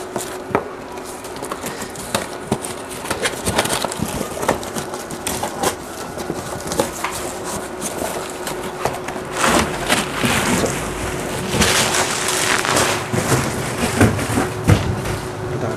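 Cardboard carton and plastic packaging rustling and scraping, with scattered knocks, as a heavy lead-acid tubular battery is pulled out of its box. The rustling grows louder in two stretches, about ten and twelve seconds in, over a faint steady hum.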